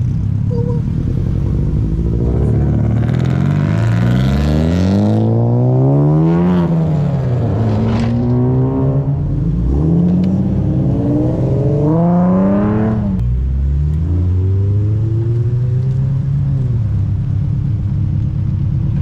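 A car engine revving up and falling back repeatedly: the pitch climbs to a peak about six seconds in, drops, climbs again to about twelve seconds and drops sharply, then runs steadier with smaller swells.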